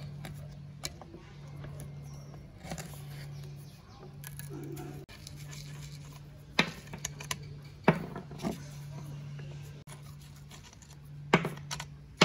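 Rusty nuts being unscrewed by hand from a chainsaw's bar studs, with small metallic clinks and several sharp clicks in the second half as the nuts and metal parts knock together. Under it, a low hum cuts in and out about every second.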